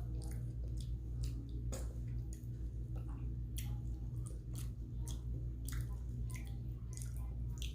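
Close-up chewing and wet mouth sounds of someone eating injera with stewed lentils and vegetables: irregular smacking clicks and squelches, over a steady low hum.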